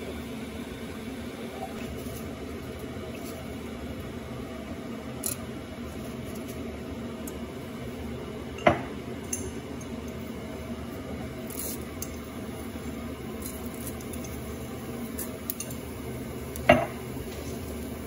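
Two sharp clinks against a nonstick frying pan, about a third of the way in and again near the end, as whole spices are tipped into the oil, over a steady background hum.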